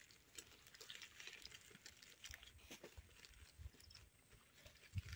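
Faint rustling and crinkling of fresh banana leaves being folded and pressed over a cooking pot, with a thump near the end.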